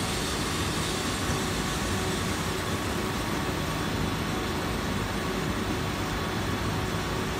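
Wire EDM machine running a cut, a steady hum and hiss with a faint constant tone and no change in level.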